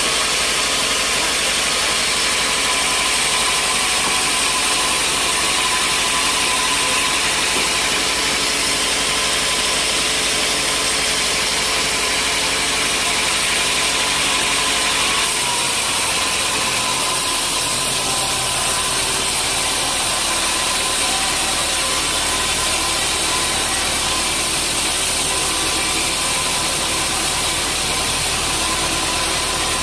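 Sawmill machinery running steadily: a loud mechanical hiss with held tones. About halfway the sound shifts, the high hiss easing and a deeper steady hum coming in.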